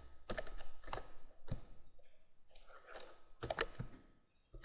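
Computer keyboard typing: quick runs of keystrokes with short pauses between them, stopping about a second before the end.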